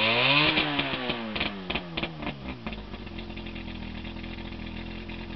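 1993 Mercury 115 inline two-stroke outboard at the top of a brief rev. It falls back over about two and a half seconds, with a quick string of sharp clicks as the revs drop, then settles to a steady idle.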